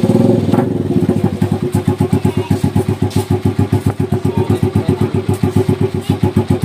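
Honda TMX 125 Alpha's single-cylinder four-stroke engine idling through an aftermarket SC Project canister on a 51 mm elbow, just after starting. It settles within the first half second into a steady, rapid, even putter of exhaust pulses.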